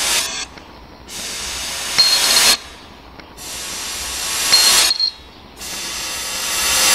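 Euro coins dropped one at a time into a pewter beaker, each landing with a sharp clink and a short high ring, twice, about two and a half seconds apart, with a third just at the end. Between the clinks a loud hiss swells and cuts off abruptly.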